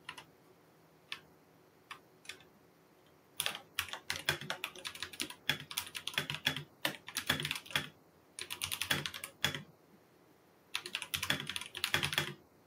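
Typing on a computer keyboard: a few scattered key taps, then three fast runs of keystrokes separated by short pauses.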